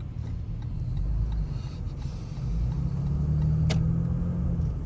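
Car engine and road noise heard from inside the cabin while driving in traffic: a steady low rumble, joined about halfway through by a steady low hum. A single sharp click sounds near the end.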